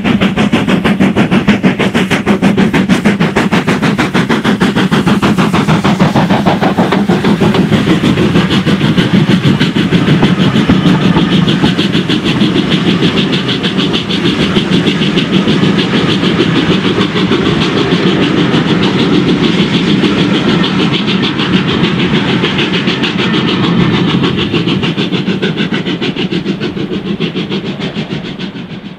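NER Q6 0-8-0 steam locomotive working a passenger train past, its exhaust beating rapidly and evenly, followed by the teak coaches rolling by on the rails. The sound fades away over the last few seconds.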